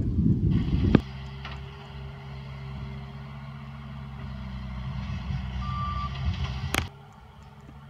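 Wind buffeting the microphone for about a second, then a vehicle engine running steadily at a low drone, with one short high beep a little before six seconds in.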